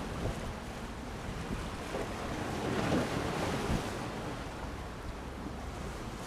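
Wind buffeting the camcorder's microphone in irregular low thumps over a steady rushing noise that swells briefly around the middle.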